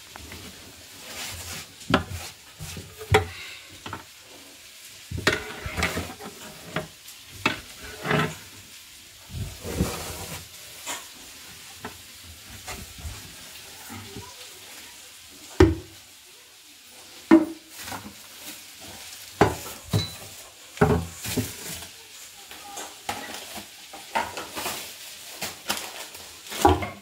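A cloth wiping the shelves of a laminated kitchen cabinet while plastic containers inside are handled and set down: irregular knocks, clatters and rubbing, with a faint steady hiss underneath.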